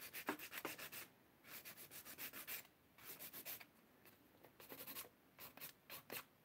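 Hand nail file filing acrylic stiletto nails: faint, quick back-and-forth scraping strokes, about four or five a second, in short runs with brief pauses between them.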